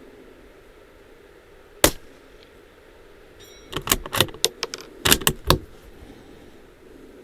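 Suppressed .22LR bolt-action rifle (Bergara B14R with an A-Tec Wave suppressor) firing a single shot about two seconds in, then a quick run of sharp metallic clicks near the middle as the bolt is worked to eject the empty case and chamber the next round.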